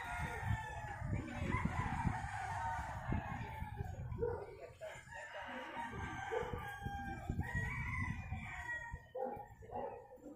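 A rooster crowing, one long drawn-out crow in the first few seconds and another about seven seconds in, over a low rumble.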